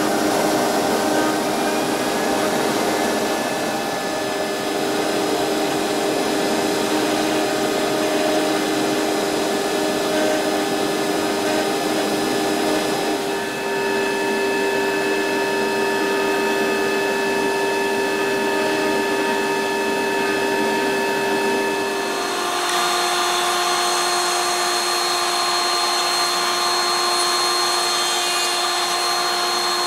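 CNC router spindle running steadily with its dust extraction as it mills a mahogany strip. About three-quarters of the way in the sound switches abruptly to a table-mounted router running as the edges of a small wooden box part are rounded over.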